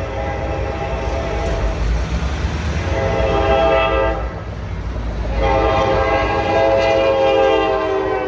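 CSX freight locomotive air horn sounding for the grade crossing: a short blast about three seconds in, then a long blast from about five seconds in, over the low rumble of the diesel locomotives as they reach the crossing.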